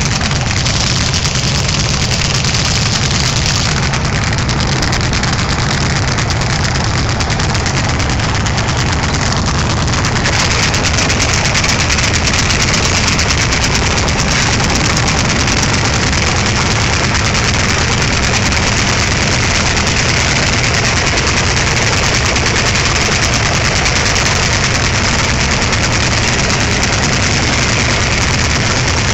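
Landini tractor engine running steadily under load while pulling a plough through the soil.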